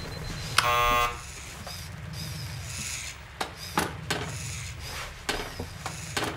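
An electric buzzer sounds once for about half a second, a harsh pitched buzz, and is followed by a few scattered sharp clicks or knocks over a low steady hum.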